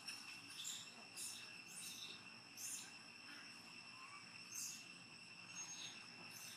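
Insects trilling steadily at several high pitches, with short high chirps recurring every half second to a second.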